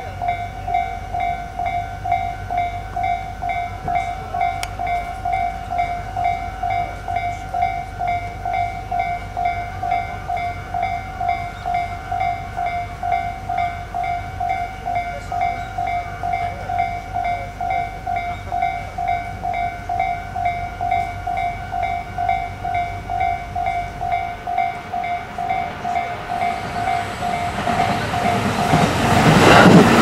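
Japanese railway crossing warning bell, an electronic ding repeating rapidly and evenly. In the last few seconds a Tobu 10030 series electric train approaches and grows loud as it reaches the crossing.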